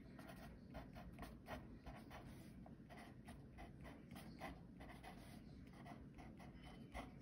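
Pencil writing on paper: faint scratching in many short, quick strokes, several a second.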